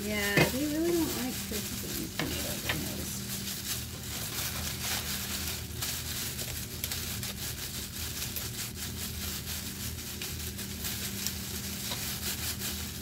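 Clear plastic produce bag crinkling and rustling as diced tomatoes are squeezed and shaken out of it, over a steady low hum. A short pitched vocal sound comes about half a second in.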